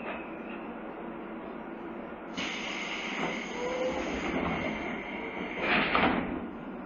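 Pneumatic doors of a JR East 201 series electric train, heard from inside the carriage: a hiss of compressed air starts suddenly about two and a half seconds in, and a louder burst of air and door movement comes near the end.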